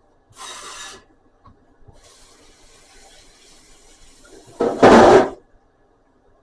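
Rubbing and scraping noises: a short burst about half a second in, fainter rustling from about two seconds, and a louder scrape-like burst near five seconds.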